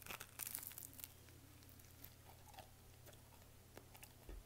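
A person biting into a toasted-bread sandwich: faint crunching in the first second, then quiet chewing.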